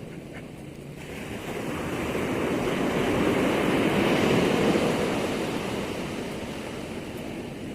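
Ocean waves at high tide: one surge of surf builds, washes in at its loudest midway, then fades back to a lower wash.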